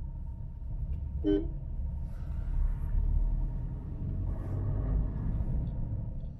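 Car on the move with a steady low rumble of engine and road noise, and a short horn toot about a second in.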